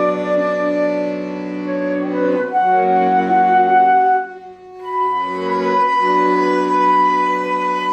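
Instrumental music: a flute melody in long held notes over a sustained accompaniment, with a brief pause between phrases about four and a half seconds in.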